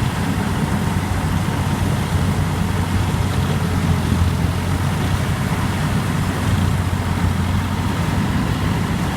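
Rice combine harvester engine running steadily at close range, a dense, even low hum.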